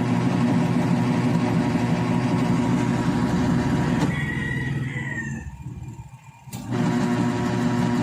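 Small portable washing machine's motor running with a steady hum. The hum dies away for about two seconds past the middle, as the wash cycle pauses and reverses, then starts again and cuts off abruptly near the end.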